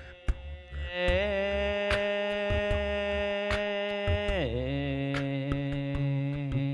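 A voice sounding a long held tone on the out-breath, with a slight waver as it starts, then gliding down to a lower held note partway through. Scattered sharp clicks sound throughout.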